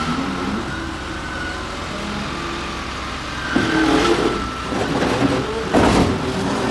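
Heavy machinery engine running, with one loud bang about six seconds in.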